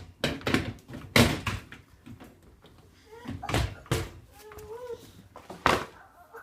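A few sharp knocks and thuds in a small room, like things being handled and set down, the loudest about a second in, with a faint wavering high-pitched sound just before the last knock.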